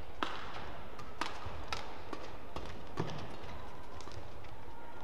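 Badminton rally: rackets strike the shuttlecock in a quick series of sharp clicks, every half second to a second, over a steady hall hum.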